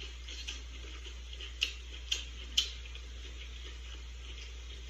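Three short, sharp clicks about half a second apart, over a steady low hum.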